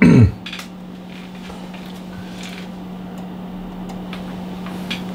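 Steady low hum from the running bench test equipment, with a few faint clicks. A short falling vocal sound comes at the very start.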